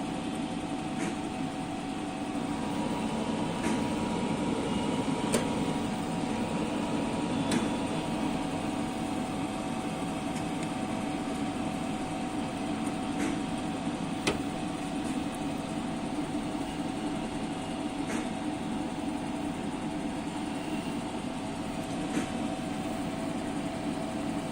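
A steady mechanical hum with a couple of thin steady tones in it, and a few light clicks scattered through.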